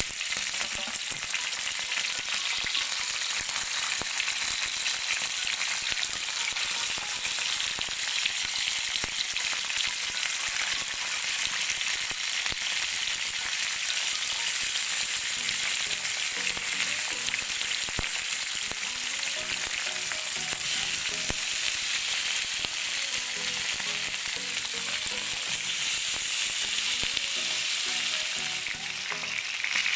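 Chicken pieces frying in a little oil in a wok, a steady sizzle as they brown and their own fat renders out.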